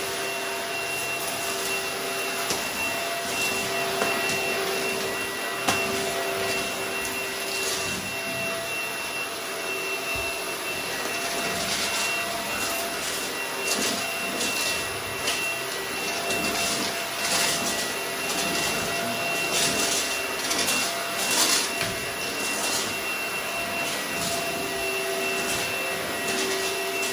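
ILIFE G100 cordless stick vacuum running steadily on its auto power setting, motor whine with the roller brush turning, as it is pushed over a hard floor sucking up hair and nail clippings. Short crackles and clicks come through in the middle stretch.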